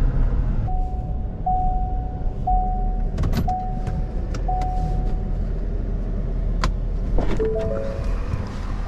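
Inside a Ford pickup's cab, a warning chime beeps five times, about once a second, over the low steady run of the idling engine. Then come sharp clicks of the driver's door latch and a short chime of a few stepped notes as the door opens.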